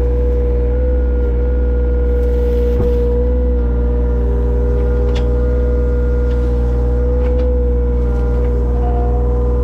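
Engine of heavy digging equipment running at a steady speed, with a strong low hum and a held whine, and a couple of faint clanks.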